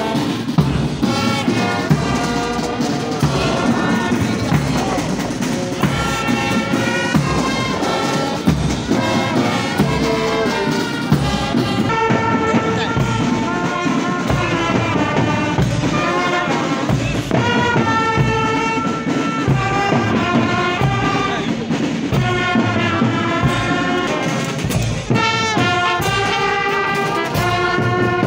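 Brass band of trumpets and trombones playing a march, with a steady drum beat under it.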